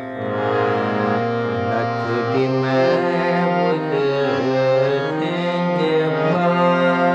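Harmonium playing sustained reed chords in raga Kafi. A man's voice joins about two seconds in, singing a slow, ornamented melodic line over it.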